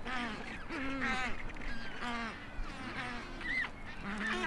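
A mixed colony of rockhopper penguins and black-browed albatrosses calling, many harsh overlapping calls following one another several times a second.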